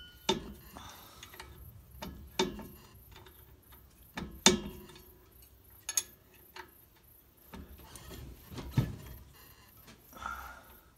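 A hand wrench working the driveshaft U-joint bolts loose at a Chevy rear differential's pinion yoke: irregular metal clicks and clinks, with about five sharper knocks, the loudest about four and a half seconds in.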